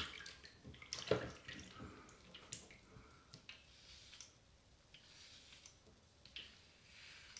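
HeadBlade S4 Moto razor scraping through shaving cream and stubble on a scalp in short, faint strokes, the loudest about a second in.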